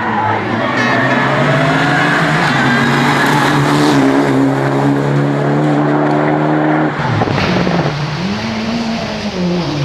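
Competition car engine held at high, nearly steady revs for about seven seconds; then the note breaks off and swings down and back up.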